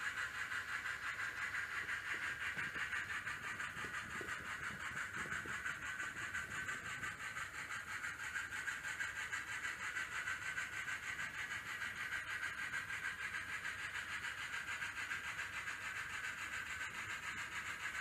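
N scale steam locomotive's onboard sound decoder playing steam chuffing through its tiny speaker, a steady hiss pulsing quickly and evenly.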